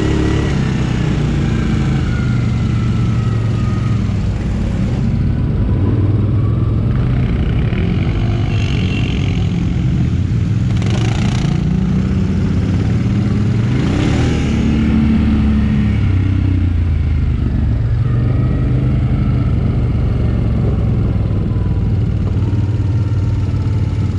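ATV (quad bike) engine running under way, its pitch rising and falling with the throttle, with two brief noisy rushes around the middle.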